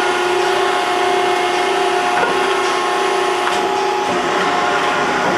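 Maren Model 72 baler's 15 hp electric motor and hydraulic pump running with a steady whine as the hydraulic ram pushes forward on its stroke.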